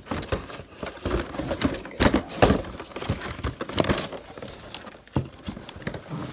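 Cardboard box and packaging handled by hand as a large plastic toy figure is freed from it: irregular crinkling and rustling with knocks and scrapes, loudest about two seconds in.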